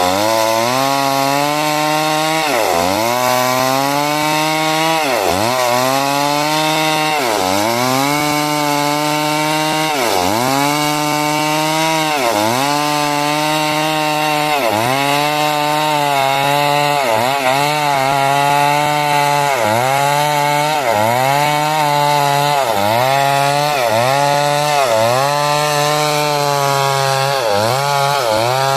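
Stihl MS 382 chainsaw running at high revs while cutting wood, its pitch dipping and recovering every second or two as the chain is loaded in the cut, the dips coming quicker near the end.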